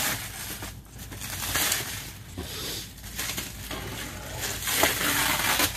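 Plastic stretch wrap being pulled and peeled off a pallet of cardboard boxes, crinkling and crackling in uneven surges.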